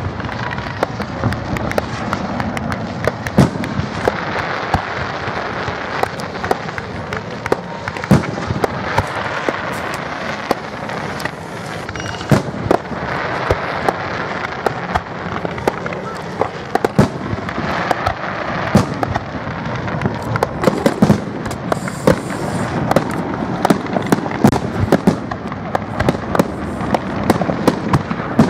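Aerial fireworks display: shells launching and bursting in quick succession, a dense, irregular stream of sharp bangs and pops, several a second, over a steady wash of noise.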